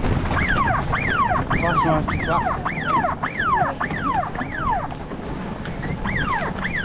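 Electronic siren of a toy fire engine: a quick falling wail repeated about twice a second, pausing briefly near the end and then starting again. Wind buffets the microphone underneath.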